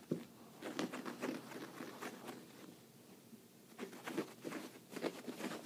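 Soft quick patter and scratching on carpet in two spells, about a second in and again near the end, from a pet prairie dog and a hand play-fighting at the carpet's edge.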